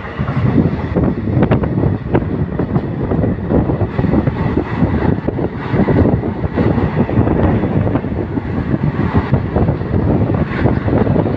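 Passenger train running at speed, its wheels rolling on the rails, with wind buffeting the microphone held out of the coach.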